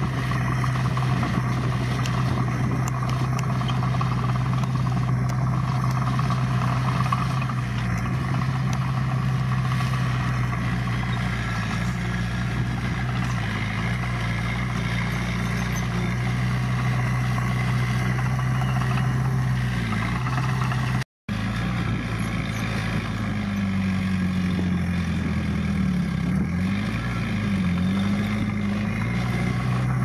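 Heavy-equipment diesel engine running steadily. The sound cuts out for a moment about two-thirds of the way through, and after that the engine speed dips and rises a few times.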